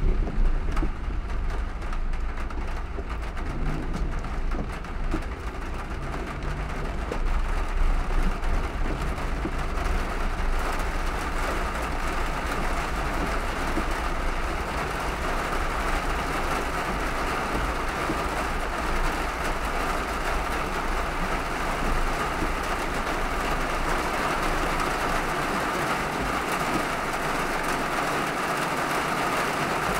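Heavy rain and tyres on a wet road, heard from inside a moving car: a steady hiss over a low road rumble. The rumble fades after about ten seconds while the hiss grows stronger.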